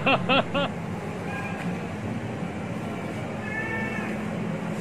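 A domestic cat meowing: one longer, arching meow about three and a half seconds in, over a steady low room hum.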